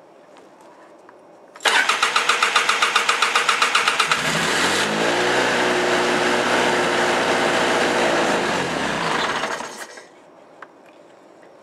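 2005 Polaris 700 twin-cylinder ATV engine cold-started without choke. The electric starter cranks in quick, even pulses for about two and a half seconds. The engine then catches, its revs rise and it settles into a steady idle, which cuts off about two seconds before the end.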